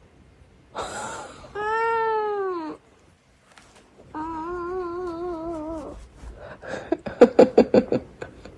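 A cat meowing in long drawn-out yowls: a short call, then one that rises and falls, then a longer wavering one. A quick run of loud pulsing sounds follows near the end.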